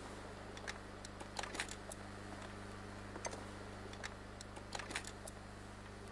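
Scattered light clicks and clacks as a bassoon's keys and joints are handled and taken out of its case, irregular and bunched in places, over a steady low hum.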